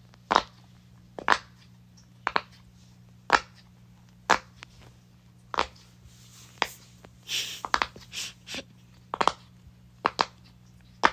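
Silicone pop-it fidget toy, its bubbles pressed one at a time, each giving a short sharp pop, roughly once a second.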